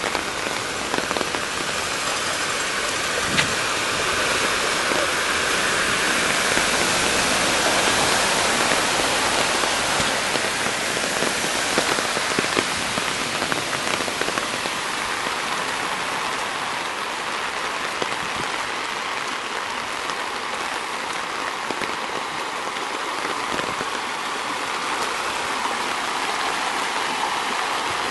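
Heavy rain pouring steadily onto a flooded street, splashing into the standing water.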